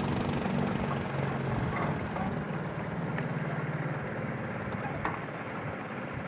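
Motorboat engine running steadily over a hiss of wind and water, its hum fading out about four seconds in.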